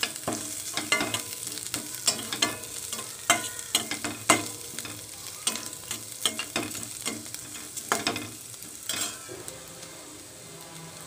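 Slotted steel spatula stirring and scraping shredded cabbage in a stainless steel kadai, with irregular clinks and scrapes over the light sizzle of the cabbage sautéing in oil. The stirring stops about nine seconds in, leaving only the sizzle.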